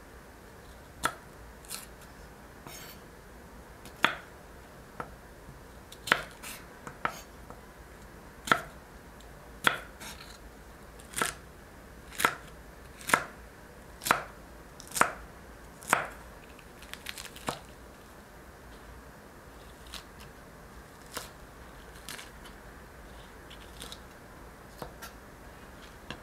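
Chef's knife chopping celery on a bamboo cutting board: sharp single knocks of the blade striking the board, about one a second through the middle. The cuts grow fainter and sparser near the end.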